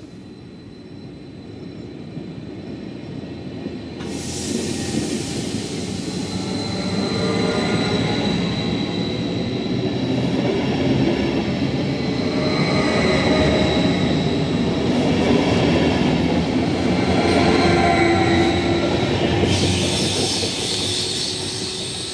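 A Westfalenbahn Stadler KISS double-deck electric multiple unit approaches and passes close by on the platform track. Its running noise grows louder, holds while the coaches go by, then fades as it draws away. A thin high wheel squeal sounds through the pass.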